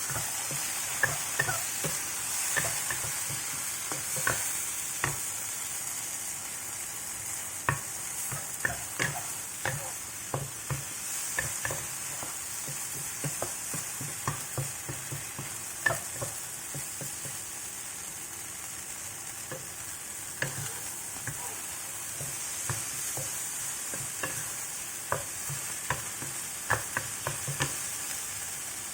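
Tomato and egg frying in a pan: a steady sizzle, with frequent irregular clicks and knocks of a utensil stirring against the pan.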